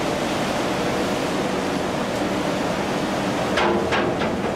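Sea water rushing and splashing along a fishing boat's side and its trawl net, a steady loud wash. A short pitched sound comes in about three and a half seconds in.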